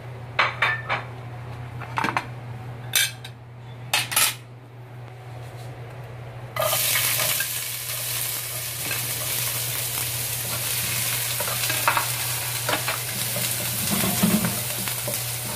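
A few sharp knocks of utensils on the pan and plate, then chopped onion hits hot oil in a non-stick wok and starts sizzling suddenly about six and a half seconds in, stirred with a wooden spatula while it fries.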